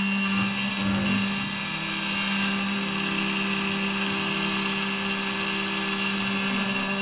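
7073 benchtop CNC milling machine milling aluminium under coolant: the spindle and end mill run with a steady hum and a high-pitched whine.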